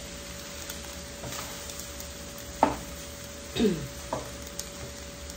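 Wooden spatula stirring and scraping vegetable fried rice in a nonstick frying pan over a lowered flame, with a faint sizzle. A sharp knock of the spatula against the pan comes about two and a half seconds in, followed by a couple of short scrapes a second later.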